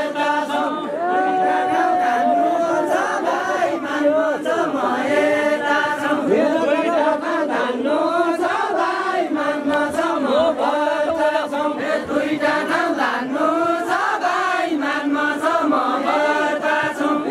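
A group of voices singing a Deuda folk song together, unaccompanied: many voices overlapping in a chanted, repeating melody.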